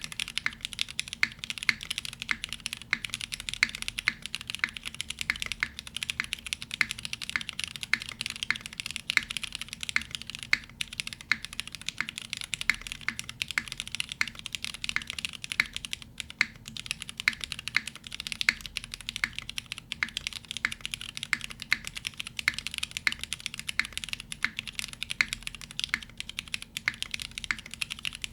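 Continuous fast typing on a custom mechanical keyboard: a gasket-mounted Iron165 with lubed Hyperglide Black linear switches on an aluminum plate and CMK keycaps. The key strokes come several a second, each a short sharp click.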